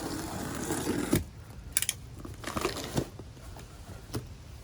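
A mailed package being opened and handled: packaging rustling and crinkling, then several sharp clicks and knocks, one a quick rattling run of clicks.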